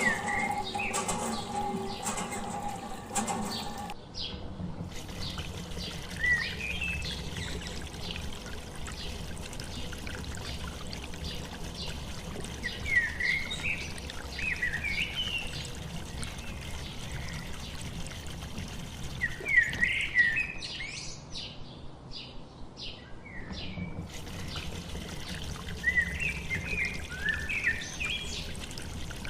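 Small birds chirping in scattered clusters of quick rising and falling notes over a steady low background noise. A hum with several steady tones runs for the first four seconds and then stops.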